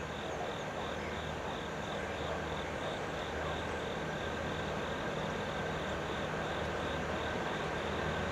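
Distant approaching diesel freight locomotives, a low steady engine hum that grows slowly louder. A high, even chirping pulsing about three times a second runs behind it.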